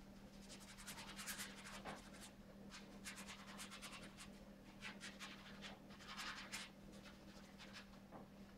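Paintbrush strokes scratching and rubbing across a stretched canvas, faint and quick, coming in clusters of short strokes, over a steady hum.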